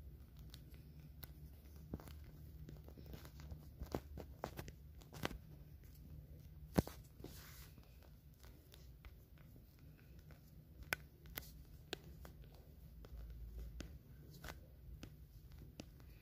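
Faint handling noise picked up by a phone's microphone: scattered light clicks and short rustles over a low, steady hum, with one sharper click about halfway through.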